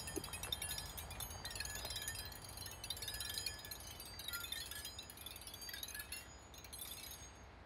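Metal chimes ringing, many high tones and clinks overlapping in a dense shimmer, dying away near the end.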